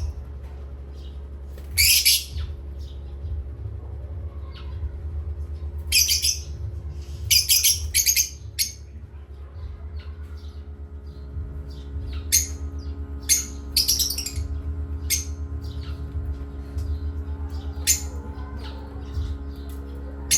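Parrots giving short, harsh squawks and chirps in scattered bursts, several in quick succession about a third of the way in, over a steady low hum.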